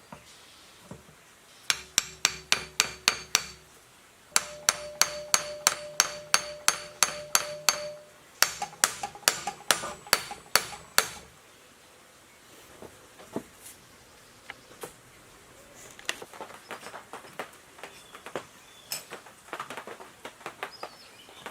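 Hammer blows on a metal part, struck rapidly in three runs of about four to six strikes a second, each blow ringing. After a pause, lighter and irregular tapping and clinking of metal follows.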